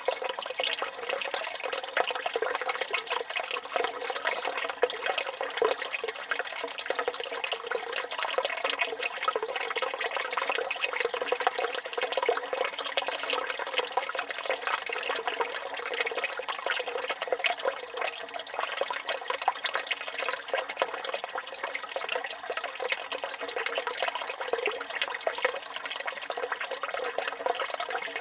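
Water from a village fountain's spout running in a steady stream and splashing, with no pauses or changes.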